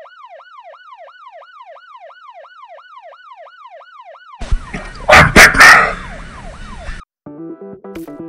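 Siren sound effect in a quick yelp, its pitch falling over and over about three times a second. It stops about four seconds in and is followed by a loud, rough noise lasting a couple of seconds. Intro music starts near the end.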